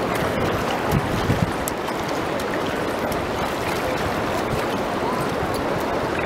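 Steady wash of shallow seawater sloshing and lapping, with a couple of dull low thumps about a second in.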